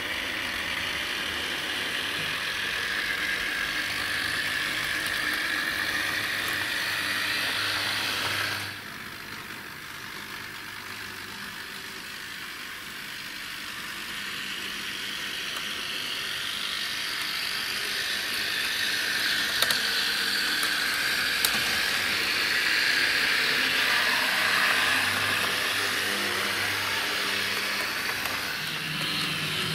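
H0-scale model trams running on the layout's track: the steady whir of small electric motors and gears with wheels rattling over the rails. It drops suddenly about a third of the way in, then builds up louder again.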